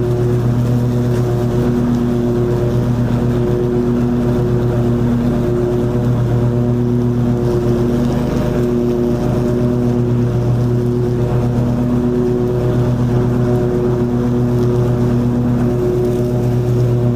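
Toro TimeCutter 50-inch zero-turn mower's engine running steadily at mowing speed with the blades cutting long grass: a loud, even hum with a low drone.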